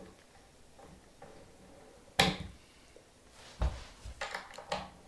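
Knocks and clicks of a hand tool and screw against the panel of an IKEA Kallax shelf as the last screw is turned in: one sharp knock about two seconds in, then a quick run of lighter knocks and clicks near the end.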